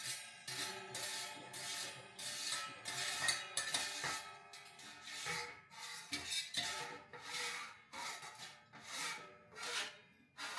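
Background music with a rhythmic scraping beat, a little under two strokes a second, over sustained pitched notes.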